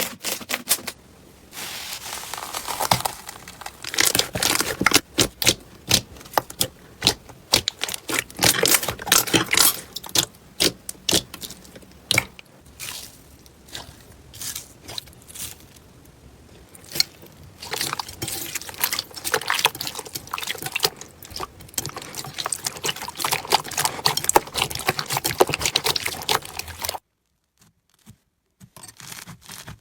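Hands squishing, poking and stretching slime, making dense runs of sticky clicks, pops and crackles. The sound stops briefly near the end, then starts again.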